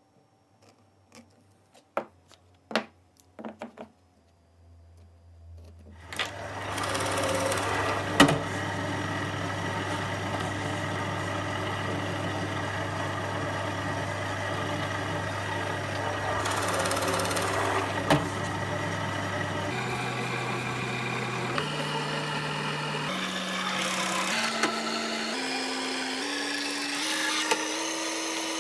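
A few light clicks from pieces handled on a workbench. About five seconds in, a drill press starts and runs steadily, boring holes in a wooden board. In the last third its hum climbs in pitch in several even steps.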